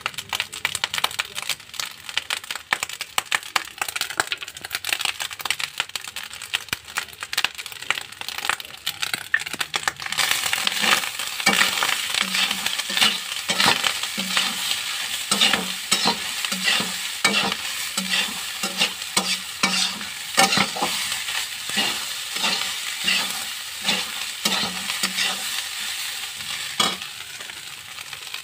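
Rice frying in a metal kadhai, stirred and turned with a metal spatula that scrapes and clicks against the pan over a steady sizzle. The sizzle grows louder about ten seconds in.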